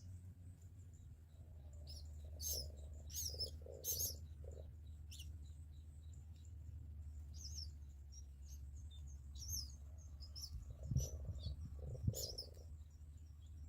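Small birds chirping: short, high, quick calls, in a busy cluster about two to five seconds in and again around eleven to twelve seconds, with scattered chirps between, over a steady low rumble.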